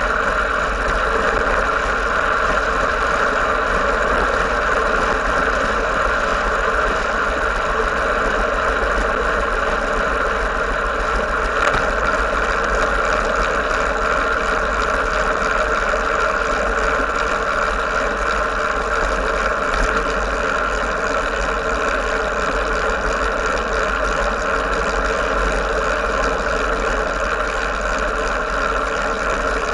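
Steady rushing wind and tyre road noise on a camera mounted on a moving road bicycle, with a deep rumble underneath. There is one short click about twelve seconds in.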